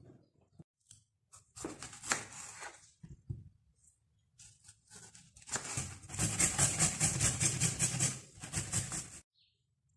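Tomato halves rubbed hard against a flat metal hand grater in fast, even rasping strokes, about five a second, for some four seconds, stopping suddenly near the end. A few scrapes of a knife on a plastic chopping board come earlier.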